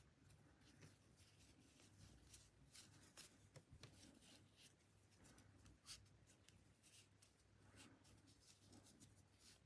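Near silence: faint rustling and scattered soft ticks of macrame cord being handled and knotted by hand, over a low steady hum.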